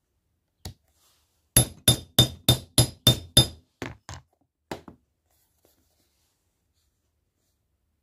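Hammer striking a steel rivet setter to peen a copper saddle maker's rivet through a leather sheath on an anvil. One light tap, then about seven hard, ringing blows at roughly three a second, then two lighter taps.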